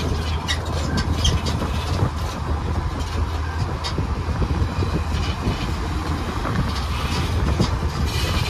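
Open-air parking-lot tram running steadily, heard from on board: a low steady rumble with road noise and a few light rattles.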